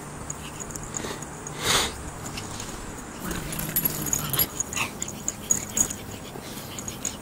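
Two pugs, a pug puppy and an adult, playing, with short dog noises. The loudest is a brief burst about two seconds in; a low-pitched stretch and a few sharp clicks follow from about three to six seconds in.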